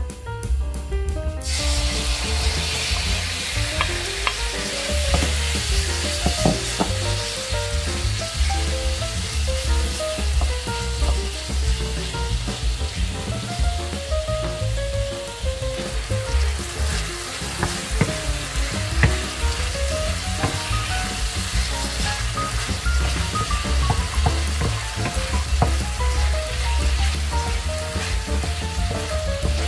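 Beef slices hitting hot vegetable oil in a nonstick frying pan, sizzling from about a second and a half in and frying steadily, turned with a wooden spatula near the end. Background music with a pulsing bass plays underneath.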